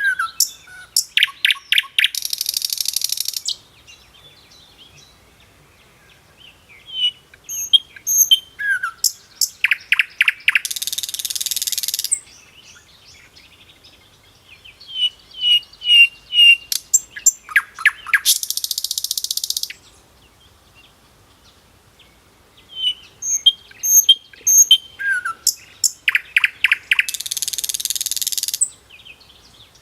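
A songbird singing the same phrase four times, about eight seconds apart: a run of short high chirps, then a harsh buzzy trill lasting a second or two, with quiet gaps between.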